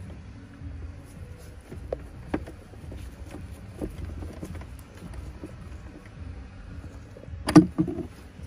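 Screwdriver turning the glove box screws into the dashboard: scattered small clicks and knocks, with one louder knock near the end, over a low steady hum.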